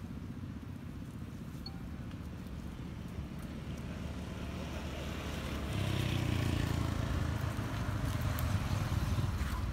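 A motor vehicle's engine running nearby, a steady low hum that grows louder and is loudest from about six seconds in.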